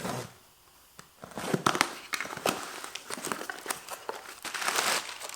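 Packaging rustling and crinkling in quick, irregular crackles as a box of roll-cage mounting plates and bolts is unpacked by hand, starting about a second in.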